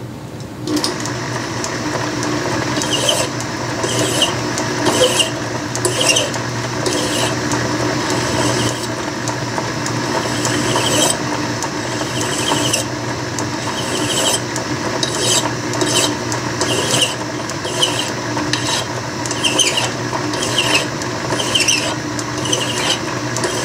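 Mill file scraping the end of a soft steel bolt spinning in a Logan lathe's three-jaw chuck, in strokes roughly once a second over the steady hum of the running lathe. The filing rounds off the turned end and breaks its corners.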